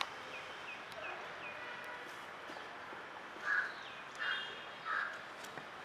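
Birds calling: a run of short, high, falling chirps in the first second or so, then three louder, harsher calls evenly spaced in the second half.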